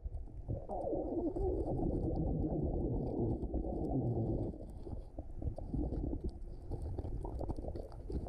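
Underwater sound from a scuba diver: exhaled air bubbling and gurgling from the regulator, heaviest for the first few seconds and then weaker, with faint crackling clicks in the water.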